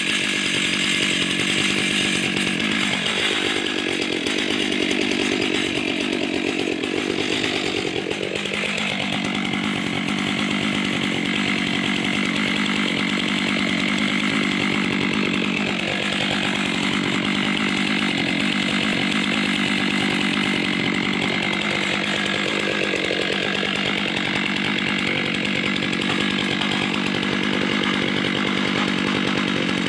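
Stihl chainsaw mounted in a chainsaw mill, running steadily at high throttle while ripping lengthwise through a log to take off the top slab. Its pitch dips and recovers a few times under load.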